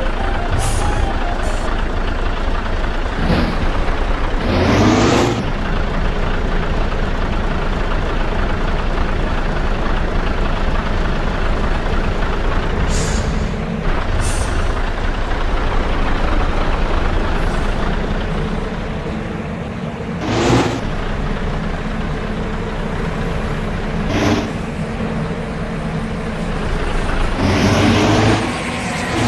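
Heavy road traffic with large diesel vehicles such as buses and trucks running past, broken by several short, sudden bursts that PANN files under air brake, and a pitched, horn-like sound near the end.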